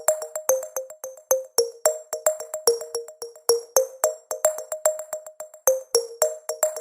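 Background music: a light electronic tune of short plucked notes, several to the second, over a quick ticking beat.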